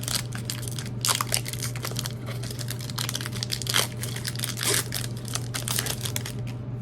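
Foil wrapper of a Pokémon booster pack being torn open and crinkled, a dense run of crackles that eases off near the end.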